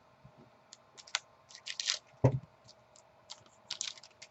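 Football trading cards being flipped and slid against one another: a scatter of short, sharp clicks and snaps, with one duller knock about two seconds in.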